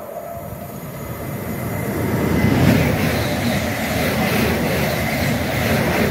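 Two coupled Class 350 Desiro electric multiple units passing through at speed: a rush of wheels on rail that builds and is loud from about two seconds in, with a thin steady whine above it.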